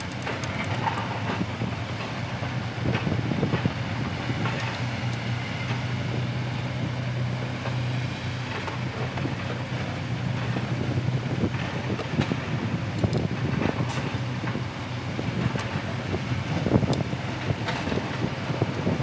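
An engine running steadily with a low, even hum, with scattered light clicks and knocks of hands working on metal radiator fittings.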